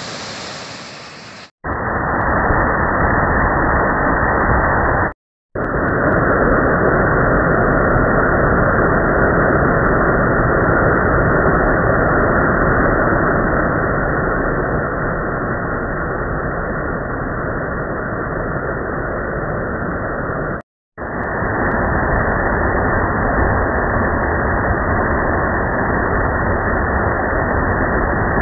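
Stream water rushing and splashing over boulders in a small cascade, a steady rush of water. It is cut off sharply twice for a moment, near 5 seconds and near 21 seconds.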